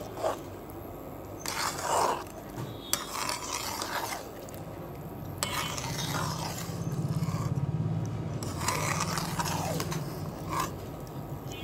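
A metal spoon scrapes and stirs thick, sticky plum pickle cooked with molasses jaggery in a cooking pan, with an irregular scrape every second or two. A low steady hum comes in about halfway.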